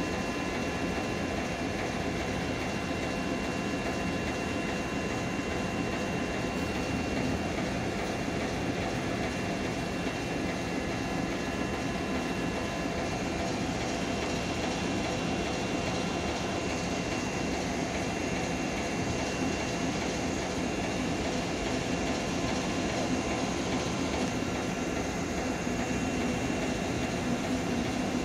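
ER9-series electric multiple unit (suburban electric train) rolling slowly into a station platform: a steady running noise with a thin, steady high whine, growing slightly louder near the end as it draws close.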